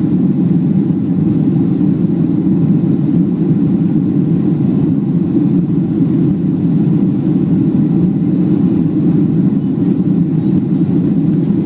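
Steady low rumble of a Boeing 737's jet engines and airflow, heard from inside the passenger cabin.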